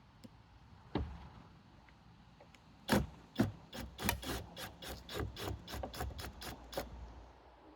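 Work on gutter flashing: a single knock, then a quick run of about a dozen rasping, scraping strokes, three or four a second, that stops a little before the end.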